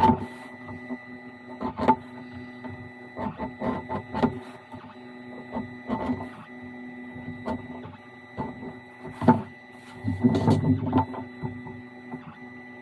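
A steady machine hum of several fixed tones, with scattered light clicks and taps of tools and leather being handled at a workbench, and a louder rustling scrape about ten seconds in.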